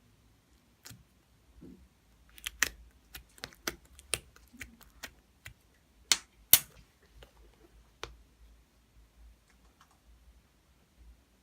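A series of irregular sharp clicks and taps, bunched together in the first half, with the two loudest just past the middle, then thinning out to a few faint ones.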